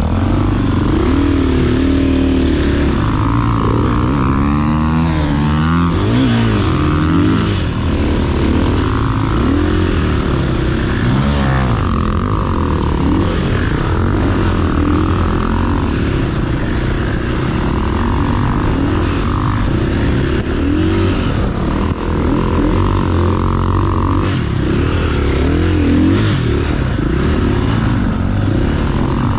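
Dirt bike engine being ridden hard, its revs rising and falling again and again as the throttle is worked and gears change.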